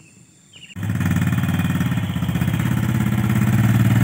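Small motorcycle engine idling steadily, its sound coming in suddenly just under a second in.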